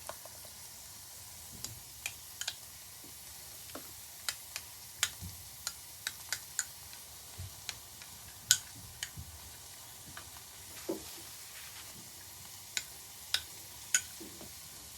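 A pot of green bean stew cooking on the stove: a steady faint sizzle with scattered sharp clicks and ticks, the loudest about eight and a half seconds in.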